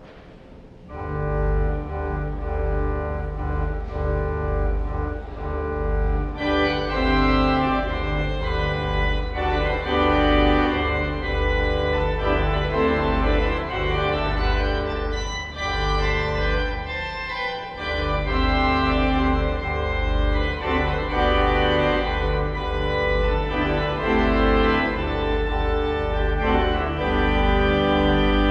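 Church organ playing sustained chords over deep bass pedal notes, starting about a second in and growing fuller and brighter at about six seconds in.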